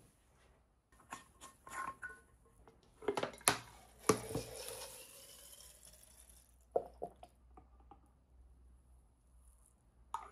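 Liquid fuel poured into a metal burner canister, the gurgle rising steadily in pitch as the canister fills. Before it come several sharp clicks and knocks of metal parts being handled, after it a few light clicks, and there is a sharp click near the end as the burner head is fitted.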